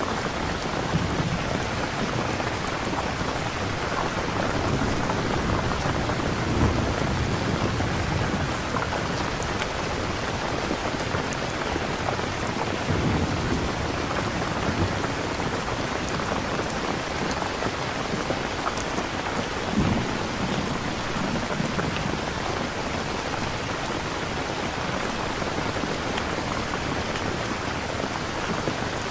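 Steady rain falling, with low rumbles of thunder rolling in a few times.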